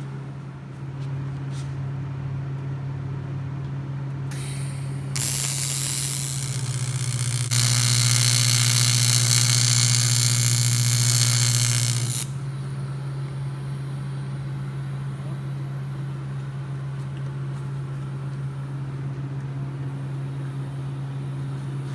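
TIG welding arc on polished metal tubing: a steady hissing buzz that starts about five seconds in, gets louder about two seconds later and cuts off suddenly about five seconds after that, over a steady low hum.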